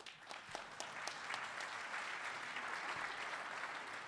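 Audience applauding, beginning with a few separate claps and quickly filling out into steady applause.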